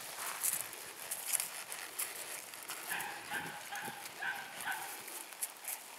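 A dog barking off and on in a quick run of short barks, about two or three a second, starting about halfway through.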